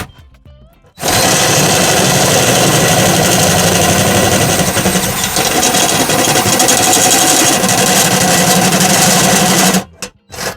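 Power drill turning a titanium-coated step drill bit that is cutting through the sheet metal of a thick box, widening the hole step by step. The drill stops briefly at the start, runs steadily for about nine seconds, then stops near the end.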